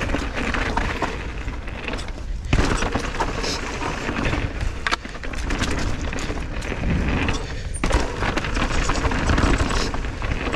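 Mountain bike descending a rough downhill trail: tyres running over dirt and rock, with frequent knocks and clatters from the bike over bumps throughout, over a steady rushing noise.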